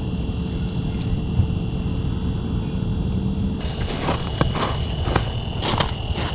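Steady high-pitched whine from a Vexilar fish-finder flasher, over a low wind rumble. About three and a half seconds in, crunching footsteps on snow-covered ice join in.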